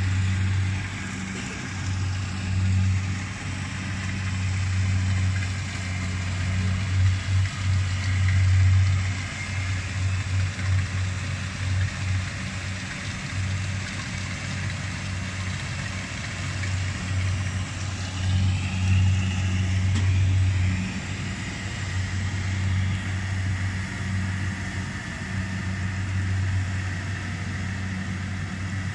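Rice combine harvester running as it cuts standing rice: a steady low engine drone that swells and eases in level as the machine works along the crop.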